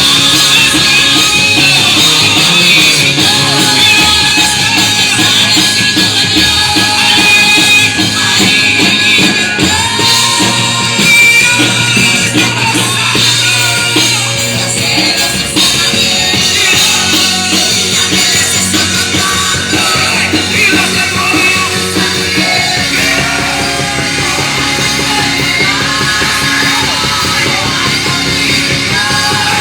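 Live worship band music with a drum kit and singing voices, loud and continuous.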